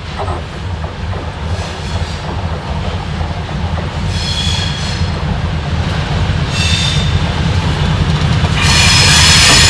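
2TE10U twin-section diesel-electric locomotive passing close by with a freight train: the low rumble of its two-stroke diesel engines grows steadily louder. Short high metallic squeals from the running gear come about every two to three seconds. Near the end a loud, sustained high squeal and rumble sets in as the bogies and the first tank wagon roll past.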